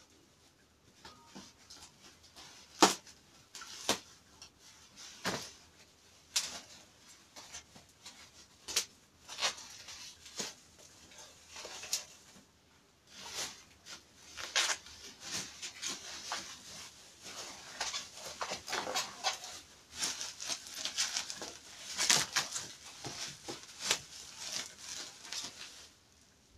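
Bubble wrap and plastic packaging pulled off and crumpled by hand: irregular crinkling and crackling, with a sharp snap about three seconds in and the crinkling growing denser in the second half.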